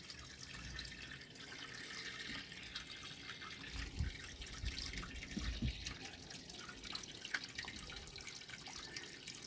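Faint water running into a DIY polypropylene sieve filter box as it fills near the top, with small drips and trickles; the box is leaking at its welded bottom and sidewall. A couple of soft low bumps come midway.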